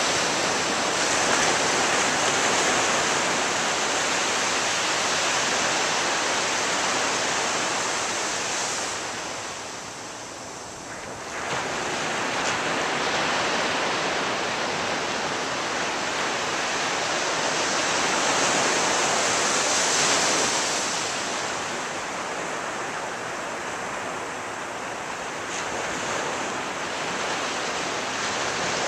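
Ocean surf breaking and washing up a beach in a continuous hiss that swells and ebbs. It eases off about ten seconds in, then the next wave comes in abruptly, builds to a peak and slackens again.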